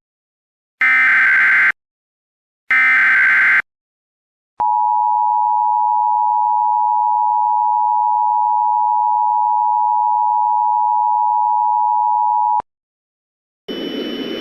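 Emergency Alert System tones: the last two of three SAME header data bursts, about a second each, then after a pause the two-tone attention signal, a steady pair of tones (853 and 960 Hz) held for about eight seconds and cut off sharply. A steady hiss with faint tones starts about a second later.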